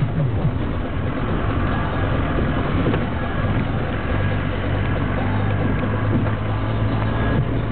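Jeep driving on an unpaved mountain road, heard from inside the cabin: engine and road rumble, with a steady low drone that grows stronger about halfway through.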